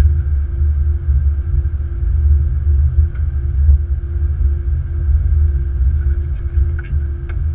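Flight-deck noise of an Airbus A330-200 taxiing: a steady low rumble, with a thin steady hum above it and a few faint ticks.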